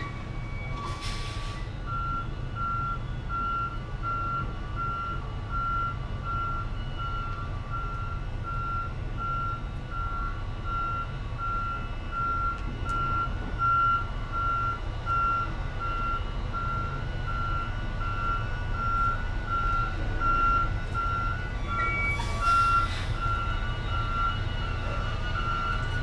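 Semi-truck backup alarm beeping about once a second while the tractor-trailer reverses, over the steady low rumble of its diesel engine. Two brief hisses, one near the start and one near the end.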